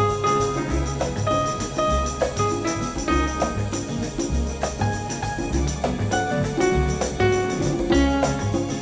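Upbeat background music with a steady bass line, pitched melody notes and light, jingly percussion.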